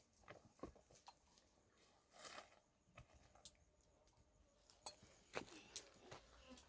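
Near silence broken by a few faint scattered clicks and knocks.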